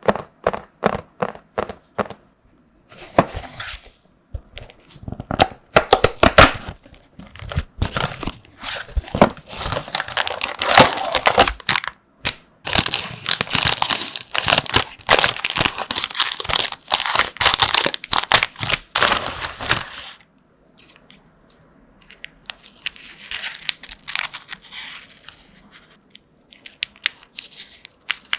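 Packaging being crinkled and torn open close to the microphone. It opens with a quick run of sharp ticks, turns into dense crinkling and tearing through the middle, and eases to softer rustling near the end.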